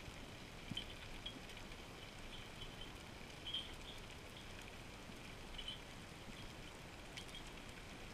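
Faint underwater ambience picked up by a camera below the surface: a steady hiss with scattered small clicks and crackles, a few slightly louder crackles about a second in, in the middle and near six seconds.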